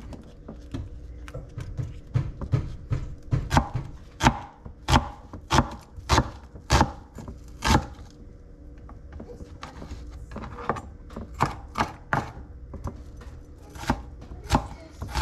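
Chef's knife dicing a yellow onion on a plastic cutting board: sharp knocks of the blade striking the board, about two a second, with a short pause in the middle.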